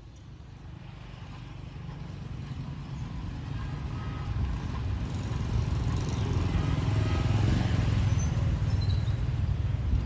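D19E diesel-electric locomotive approaching along the track, its low engine rumble growing steadily louder.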